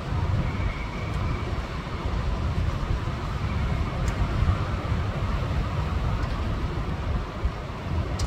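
Strong storm wind buffeting the microphone: a steady low rumble that swells and eases with the gusts.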